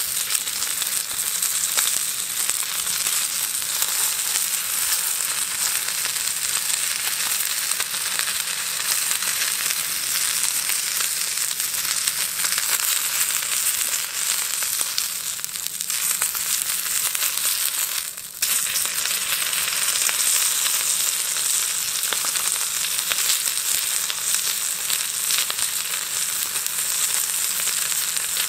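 Whole fish frying in a pan over a campfire: a steady sizzle laced with fine crackles. The sizzle dips briefly about eighteen seconds in.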